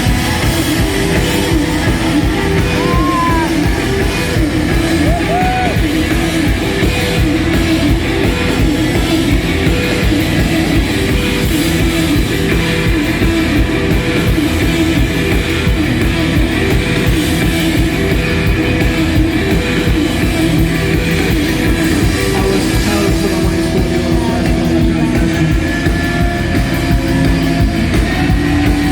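Post-punk rock band playing live: loud guitars and drums with singing, running steadily.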